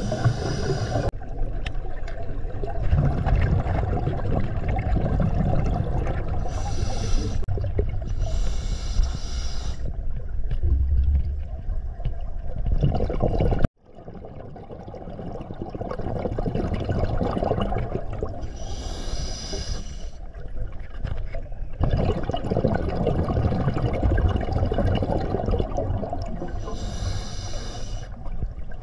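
Scuba diver breathing through an open-circuit regulator underwater: short hissing inhalations every several seconds over a steady low rumble of exhaled bubbles. The sound cuts out abruptly about halfway through, then returns.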